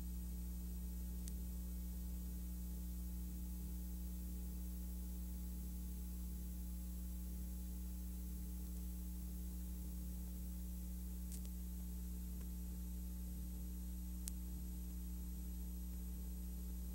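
Steady electrical hum with a constant hiss over it, the blank sound track of a silent film transfer, broken only by a few faint clicks.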